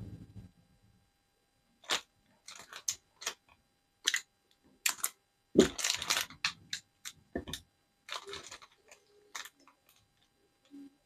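Irregular clicks, taps and rustles of lithium polymer pouch batteries and multimeter test probes being handled on a work mat, with a thump and a longer rustle about halfway through.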